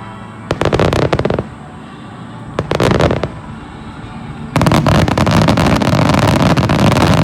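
Fireworks display firing in a rapid barrage: two short volleys of quick bangs, then from about four and a half seconds in a continuous dense run of bursts and crackle.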